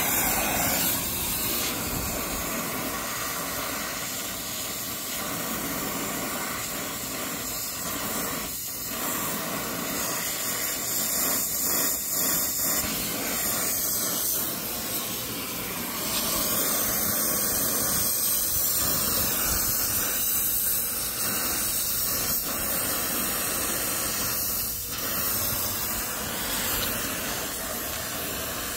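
Brazing torch flame hissing steadily as it heats a copper pipe joint, swelling a little in loudness as the flame is moved.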